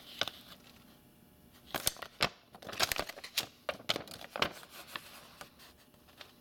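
Folded paper leaflet being unfolded and handled: papery crinkling and rustling, with a run of sharp crackles from about two seconds in until about four and a half seconds in.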